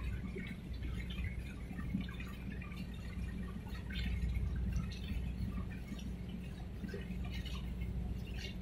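Harbour water lapping and splashing against the shore in small irregular splashes, over a steady low rumble.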